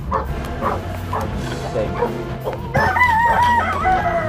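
A rooster crows once, a long call starting a little before three seconds in and falling away at the end, over short animal calls from the yard and background music.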